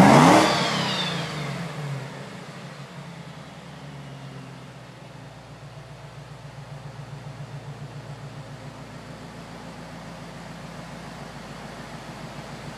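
Supercharged V8 of a 1967 Mustang GT500 'Eleanor' blipped once right at the start, revving up sharply and falling back over about two seconds, then idling with an even, regular pulse.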